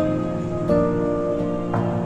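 Background music: soft new-age style instrumental with sustained notes and chord changes every second or so.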